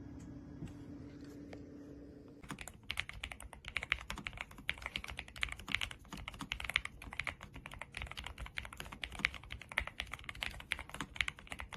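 Fast typing on a NuPhy Air75 V3 low-profile mechanical keyboard: a dense run of key clicks that starts about two and a half seconds in. Before that there is only a steady low hum.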